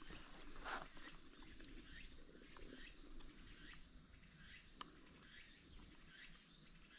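Near silence: faint outdoor background with a few soft, short high chirps and small clicks.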